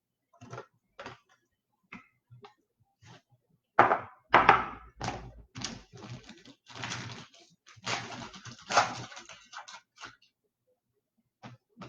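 Trading cards and their packaging being handled on a table: a series of taps, knocks and scraping rustles, sparse at first and busiest and loudest from about a third of the way in until near the end.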